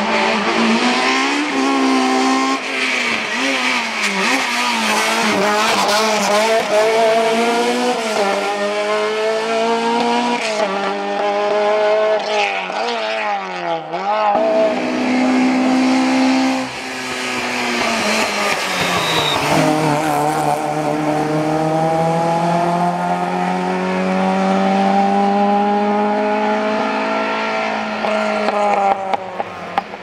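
A rally car's engine being driven hard, its revs rising and falling repeatedly through gear changes, with a short lift about halfway. It then makes one long, slow climb in pitch as the car pulls away.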